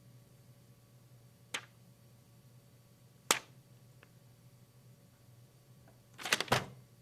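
Hand-made Foley effects: sharp knocks or taps, one about a second and a half in, a louder one about three seconds in, and a quick run of about four near the end.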